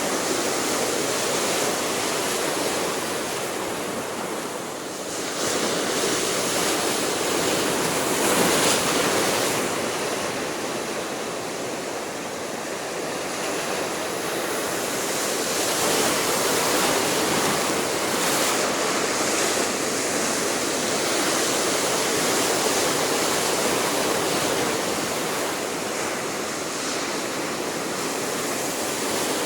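Sea surf: waves breaking and washing in steadily, swelling and ebbing, with louder surges every few seconds.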